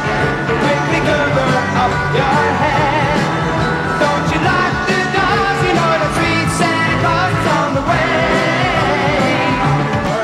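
Background music: a song with a singing voice.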